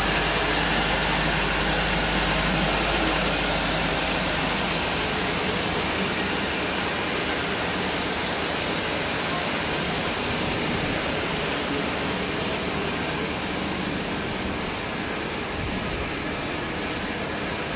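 Fish feed extrusion line running: a steady, dense machine noise from the extruder and its motors, with a faint high steady whine, growing a little fainter toward the end.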